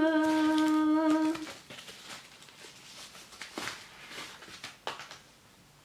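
A woman's voice hums one held note for about a second and a half, then quiet rustling of a protective sleeve with a few light clicks as a compact camera is slid out of it.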